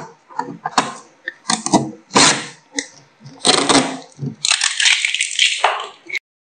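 Packing tape being peeled off the plastic body of a Canon PIXMA G3012 ink tank printer: a series of short rips, then a longer one about four and a half seconds in. The sound cuts off suddenly near the end.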